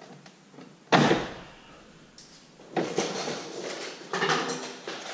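Plastic radiator fan shroud of a 6.7 Cummins being tugged and knocked against the radiator: one sharp knock about a second in, then a couple of seconds of clattering and scraping. It is still held to the lower radiator seal by a clip that was missed.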